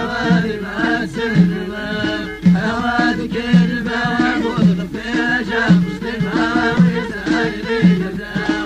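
Amazigh folk song from the Middle Atlas: singing voices over a low instrumental figure that repeats about once a second.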